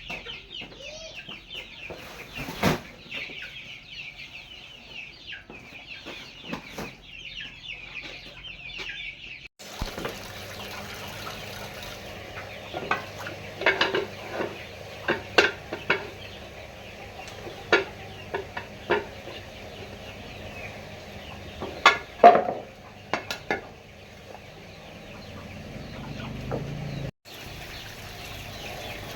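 Chickens clucking and cheeping in a dense, high chatter, then, after a cut, scattered clinks and knocks of pots, dishes and utensils being handled.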